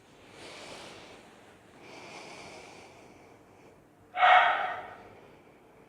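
A woman breathing audibly close to the microphone: two soft breaths, then a much louder, sharper breath about four seconds in, the rhythmic breathing of holding a yoga lunge.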